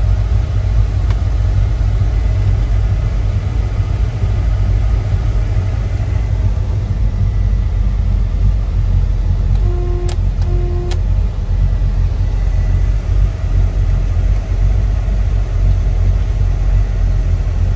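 1970 Chevelle's 396 big-block V8 idling through headers and dual exhaust, a loud, steady low rumble. Two short beeps about ten seconds in.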